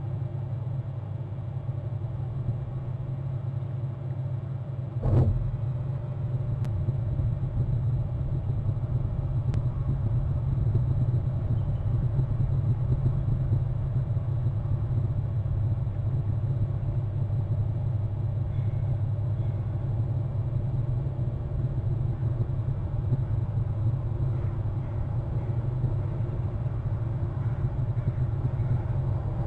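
Steady low rumble, with a single sharp click about five seconds in.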